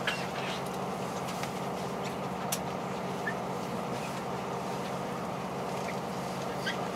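Steady low hum of a diesel limited-express railcar's engine, heard from inside the carriage, with a few faint clicks.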